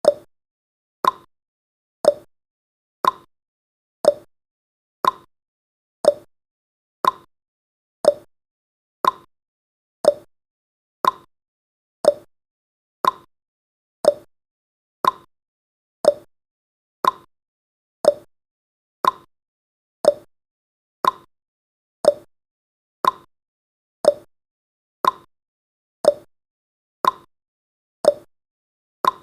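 Timer's clock tick-tock sound effect: one short tick every second, alternating between a lower and a higher tick.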